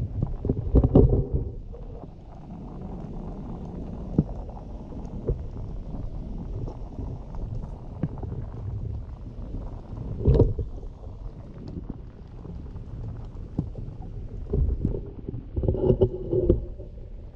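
Muffled low rumble of stream water heard through a GoPro in its underwater housing, with louder gurgling surges about a second in, around ten seconds in and near the end.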